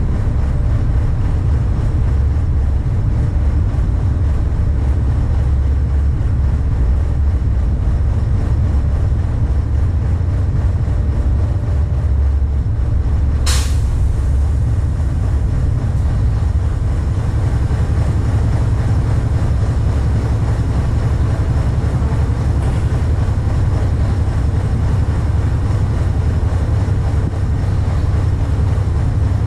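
Cargo ship's diesel engines running with a loud, steady low drone, and one brief sharp click about halfway through.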